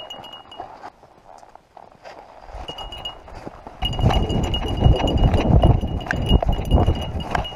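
Camera harnessed to a running dog: paws thumping through snow, the mount jostling and wind rushing over the microphone, suddenly much louder about four seconds in.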